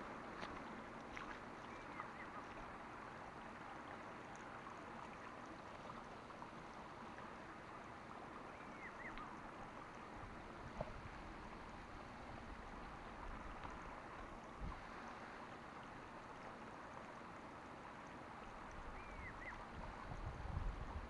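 Faint outdoor ambience beside a marsh: a steady low hiss with a few short faint whistles now and then and a couple of soft bumps. Wind rumbles on the microphone near the end.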